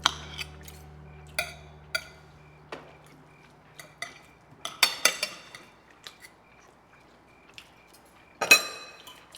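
Cutlery clinking and scraping on dinner plates: scattered short clinks, with a louder clatter near the end. Low held music notes fade out in the first few seconds.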